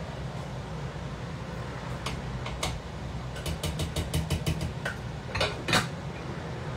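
A metal utensil clinking and scraping against a metal saucepan: a few taps, then a quick run of light ticks, then two louder clanks near the end. A steady hum from a kitchen extractor hood fan runs underneath.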